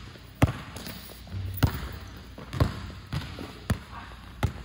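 Basketball dribbled on a hard indoor court: about six sharp bounces at an uneven pace.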